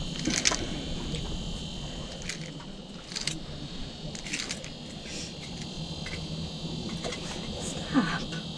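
Scattered light clicks and rustles of hands handling an ice-fishing jig rod and its inline reel, over a steady low hum and hiss.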